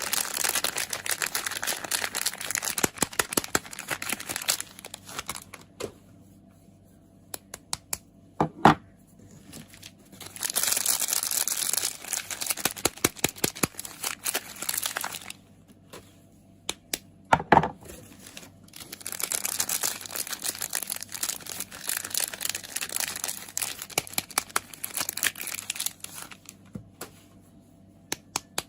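Soap packaging being crinkled and torn open by hand in three long stretches of dense crackling. Between them come scattered light taps and two sharp knocks, about a third and about two-thirds of the way through.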